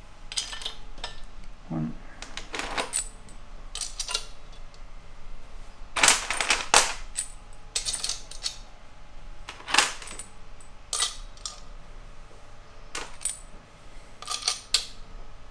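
Small steel roller rocker arms clinking as they are picked up off a metal workbench and set into a cylinder head. Irregular sharp metallic clicks and rattles, loudest about six to seven seconds in and again near ten seconds.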